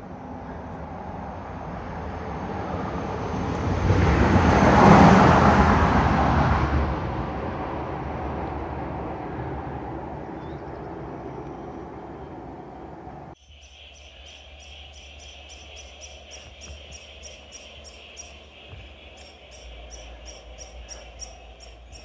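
A vehicle crossing the timber bridge overhead, its noise swelling to a peak about five seconds in and then fading. After a sudden cut, a steady chorus of rapid, high chirping follows.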